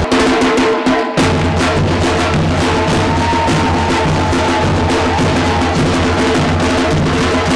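A Brazilian street-percussion ensemble playing: large surdo bass drums and a snare drum beating a steady, driving rhythm. The deep bass drums drop out for about a second near the start, then come back in.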